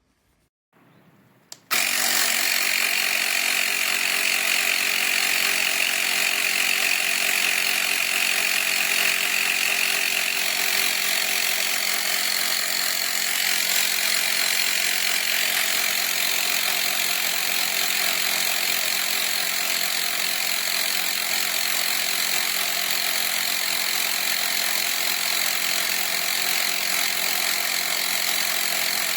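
CYCPLUS portable rechargeable tyre inflator's small electric compressor switching on about two seconds in and running steadily. Its tone shifts slightly higher about a third of the way through.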